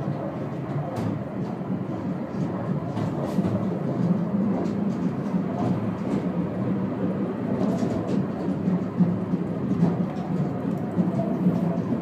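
Merkur funicular car running along its rails, a steady rumble of wheels on track heard from inside the cabin, with scattered light clicks.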